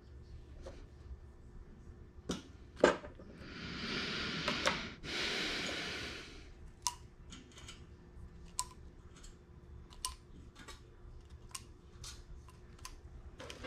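Small metal parts being handled: a hinge strip and blind hole spotters clicking and tapping, with a sharp loud click near three seconds in. Two longer rustling, scraping noises follow, from about three to six and a half seconds, broken briefly in the middle. A run of light, irregular clicks comes after.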